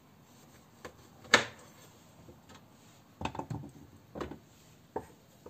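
Knife slicing oranges on a wooden cutting board: a sharp knock about a second in, then a quick cluster of knocks and rubs around three seconds in and two single knocks after.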